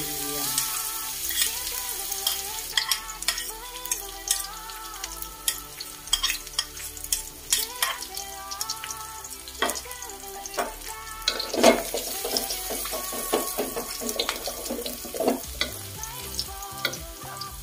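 Minced garlic sizzling in hot oil in a wok, with many short clicks and scrapes as a spoon pushes sliced red chillies in and a wooden spatula stirs. There is a louder clatter about two-thirds of the way through, and quiet background music plays throughout.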